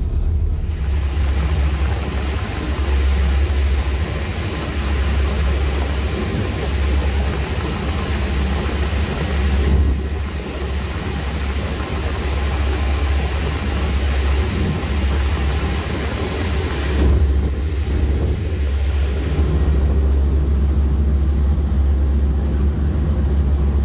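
An Emerald class ferry running at speed, heard from its open deck: the steady low rumble of its twin Yanmar 6AYEM-GT six-cylinder diesel engines under a rushing of wind and churned wake water, with a thin, steady high whine above.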